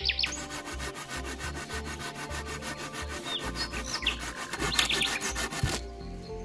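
A folding hand saw cutting through a thin wooden stick with rapid rasping strokes. The sawing stops abruptly near the end.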